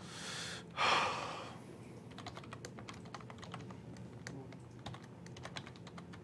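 Typing on a computer keyboard: a run of light, irregularly spaced key clicks, following two short rushes of noise in the first second and a half.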